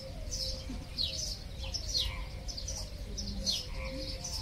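A flock of small birds chirping busily: many short, high chirps that slide downward in pitch, several a second, over a low rumble.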